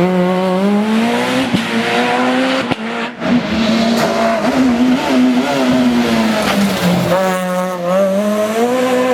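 Super 2000 rally car's naturally aspirated four-cylinder engine driven hard, revs climbing, cut sharply about three seconds in, then picking up again; the revs fall about seven seconds in and climb once more near the end.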